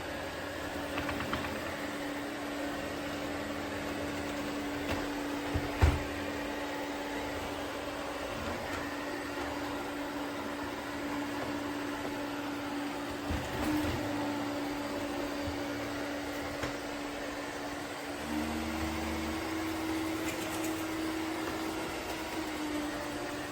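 Eureka robot vacuum running with a steady motor hum and a single steady tone. There is a sharp knock about six seconds in and a lighter one near the middle, and the hum shifts slightly higher with an added low rumble about three-quarters of the way through.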